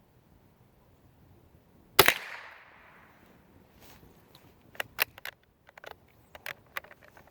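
A single .22 LR rifle shot from a Brno ZKM rifle: one sharp crack about two seconds in, its echo trailing off over about a second, followed by several light clicks.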